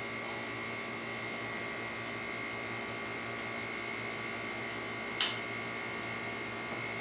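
Steady mechanical hum with a high whine, unchanging in pitch, and one sharp click about five seconds in.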